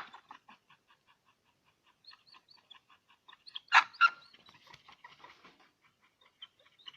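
A dog barks twice in quick succession about four seconds in, amid a run of faint, quick, short high-pitched vocal noises.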